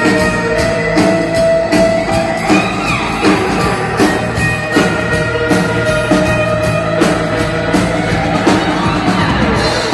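Rock music with electric guitar and a steady drum-kit beat.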